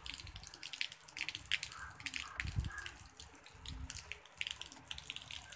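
Rain falling, a steady hiss with many close drops landing as sharp ticks, over an uneven low rumble.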